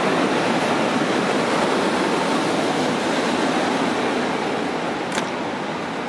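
PKP Intercity passenger train hauled by an EP09 electric locomotive rolling past a platform: a steady noise of wheels on rails that slowly fades, with a brief sharp sound about five seconds in.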